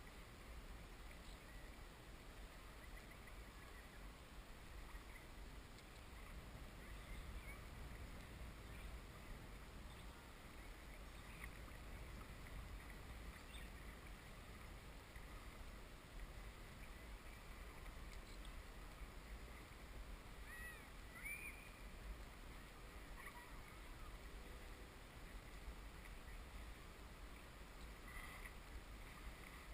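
Faint outdoor ambience with a steady low rumble and a few faint bird chirps, about two-thirds of the way through and again near the end.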